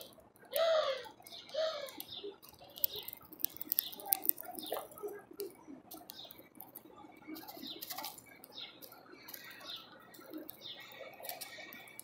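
Finch feeding at a bird feeder: irregular sharp clicks and taps of beak and feet on the feeder and sunflower seeds being picked and cracked, with three short bird calls in the first two seconds.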